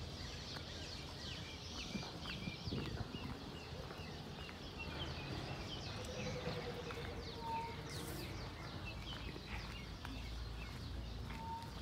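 Faint outdoor ambience of many birds chirping, with a lower trilling call about six seconds in.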